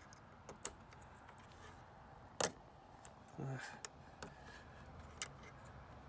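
A few sharp, separate plastic clicks as a fuse puller is worked onto a blade fuse in a car's underhood fuse block, the loudest about two and a half seconds in.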